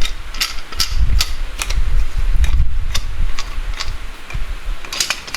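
A bolt on a rear brake caliper being undone with a hand tool: irregular metallic clicks, about two or three a second, over a low rumble that comes and goes.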